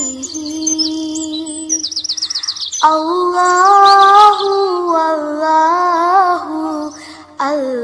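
Background nasheed-style vocal music: a voice holds long wordless sung notes, with quick bird-like chirps layered over it in the first few seconds. The music drops out briefly near the end.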